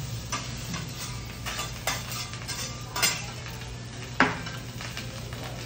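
Metal spatula scraping and clacking on a flat-top teppanyaki griddle while fried rice is chopped and turned, with a light sizzle. The strikes come irregularly; a sharp clack about four seconds in is the loudest, over a steady low hum.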